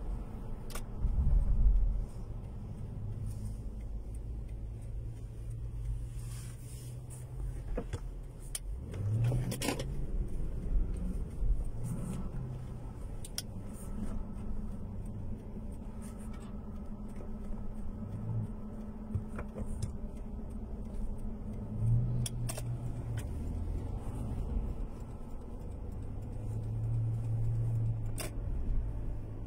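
Car engine and road noise heard from inside the cabin while driving, a steady low rumble. The engine note rises once, about a third of the way through, as the car speeds up.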